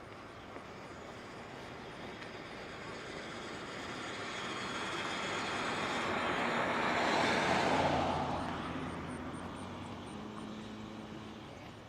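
A motor vehicle approaching and passing by, its hiss slowly swelling to its loudest about seven to eight seconds in, then fading away with a lower hum as it recedes.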